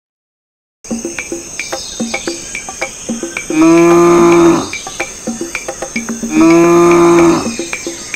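A cow mooing twice, each moo about a second long and held at a steady pitch, over steady cricket chirping that starts after about a second of silence.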